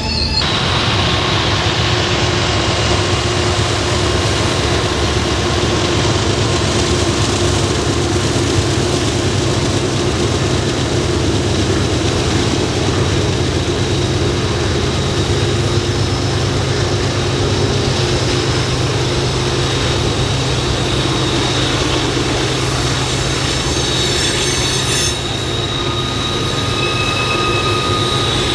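Freight train cars rolling past, with a steady loud rumble of wheels on rail and high-pitched wheel squeal from the curving mountain track. The squeal grows stronger near the end.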